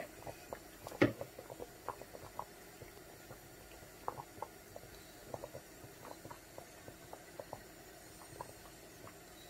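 Pot of beef pieces boiling in a little liquid: faint, irregular pops and bubbling. One louder knock about a second in.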